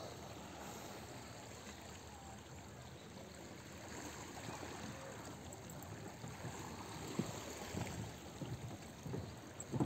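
Steady outdoor ambience of small lake waves lapping against a rocky shore, a faint even wash of water noise. A few soft, low thumps come in over the last few seconds.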